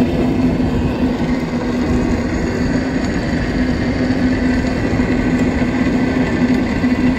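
Steady hum from a moving open cable car running along its cable, with wind buffeting the microphone in irregular gusts.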